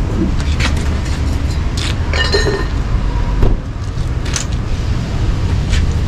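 Scattered metallic clinks and knocks of hand work on a travel trailer's wheel and its jack and lug hardware during a tire change, a few seconds apart, over a steady low rumble.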